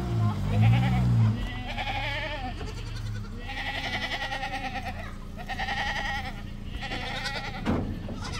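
Goats bleating: about four high, quavering bleats one after another, each around a second long.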